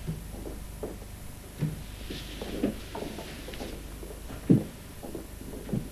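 Quiet room tone with a low steady hum, broken by a few short, soft knocks or thuds, the clearest about four and a half seconds in.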